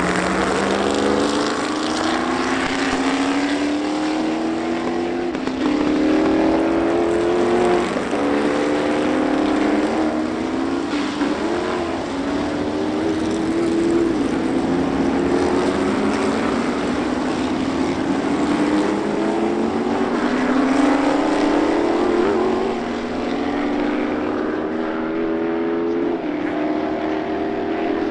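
Can-Am racing cars' engines, largely big Chevrolet V8s, accelerating hard: the pitch climbs and drops at each upshift, again and again as the cars go by.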